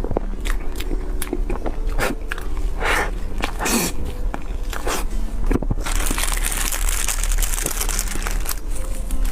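Close-miked eating sounds: bites of dessert and wet mouth clicks, with a hiss from about six seconds in.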